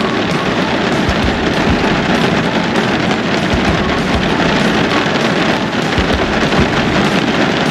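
Heavy rain drumming on the roof of a car, heard from inside the cabin as a dense, steady patter with many low thuds.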